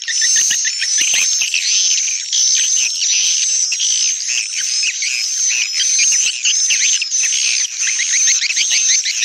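Recorded swiftlet calls played back as a swiftlet-house lure: a dense, unbroken stream of rapid, high-pitched twittering chirps, several a second.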